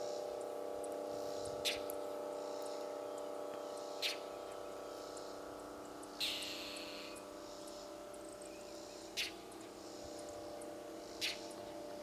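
Five short, sharp bird chip calls, one every two to three seconds, typical of a songbird scolding a fox in its territory, over a steady low hum.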